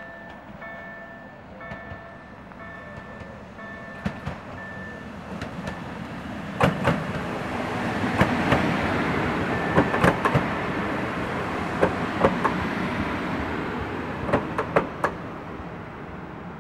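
EN98 electric multiple unit running past the platform: a rising rush of wheels on rail with sharp clicks as the wheelsets cross rail joints, loudest in the middle and fading near the end. At the start, a level-crossing warning bell rings in repeated electronic tones about every three-quarters of a second and stops about five seconds in.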